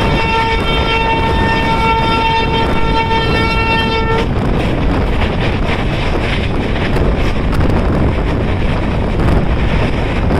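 Train horn sounding one long, steady note that cuts off about four seconds in. Under it and after it is the loud, steady rumble and wind noise of a train running at speed.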